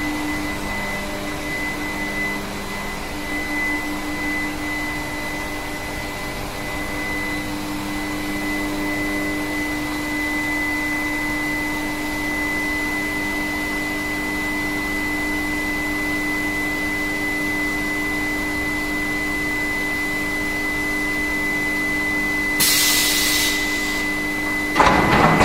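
Induction heating furnace running with a steady high whine and a lower hum over machine noise. Near the end a burst of hiss cuts in for a second or so, followed by a louder rushing noise.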